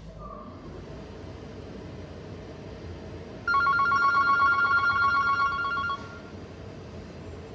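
A telephone ringing: one electronic trill of two steady tones with a fast flutter, lasting about two and a half seconds and starting about three and a half seconds in. Under it runs a steady background noise.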